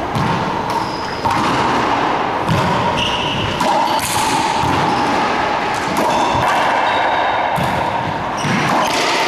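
A doubles racquetball rally: the rubber ball cracks off racquets and rebounds off the court walls and floor in a quick, irregular run of sharp hits. The hits echo around the enclosed court.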